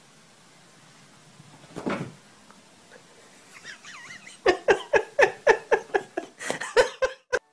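A single short sound about two seconds in, then, from about halfway, a rapid run of about a dozen short voiced calls, roughly four a second, each dropping in pitch.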